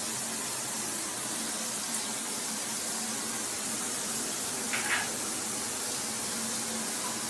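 Water spraying steadily from a 6-inch rain shower head, an even hiss of falling water.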